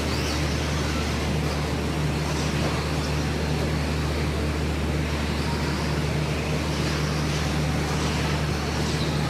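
Radio-controlled stock-class race trucks running laps on an indoor dirt track, their motors whining faintly as they pass, over a steady low hum in the hall.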